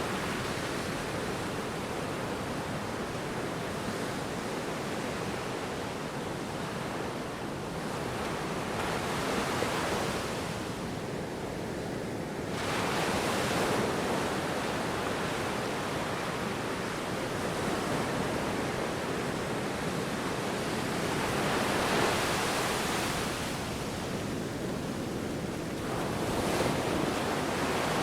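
Ocean waves breaking and washing in steadily, with the surf swelling a few times, notably about halfway through and near the end.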